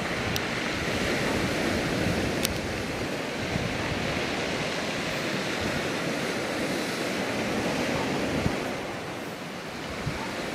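Steady rush of sea surf breaking on the beach below, with some wind on the microphone.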